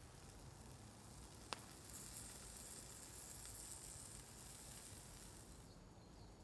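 Near silence with faint ambient hiss. A single sharp tick comes about a second and a half in, and a soft high hiss follows for a few seconds.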